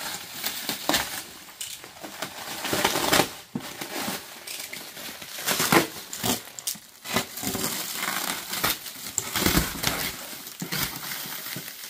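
Plastic stretch wrap on a pallet being sliced with a box cutter and pulled away, crinkling and crackling in uneven rips.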